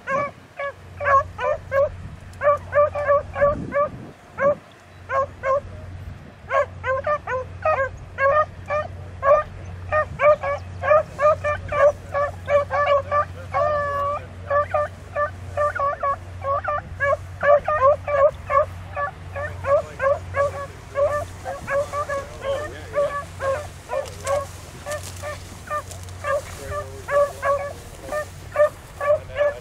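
Beagles baying on a rabbit's track: quick, repeated yelping cries, several a second, with a short lull about four seconds in.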